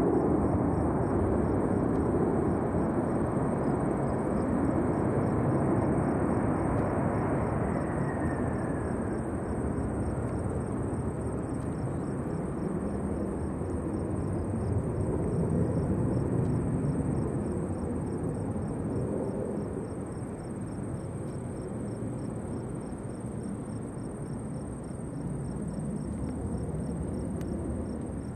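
Boeing 747 jet engines on the landing roll: a steady noisy rush that slowly fades. A faint falling whine comes about eight seconds in.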